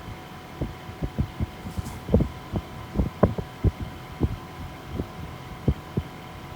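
Fujitsu ductless mini split air conditioner running with a steady hum and a few fixed tones. Irregular low thumps, uneven in timing and strength, are louder than the unit.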